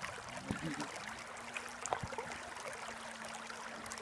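Creek water running and rippling over shallows, with a faint steady hum underneath and a few small clicks.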